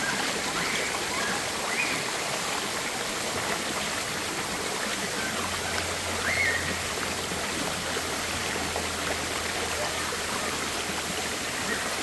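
Tall waterfall pouring into a shallow river pool: a steady rush of falling water.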